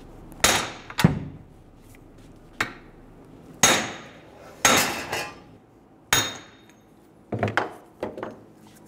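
Hammer blows on a cone-tipped hammer set in the centre of a front wheel hub, driving the hub out of its steering knuckle: about eight sharp metal-on-metal strikes at an uneven pace, some with a brief ring.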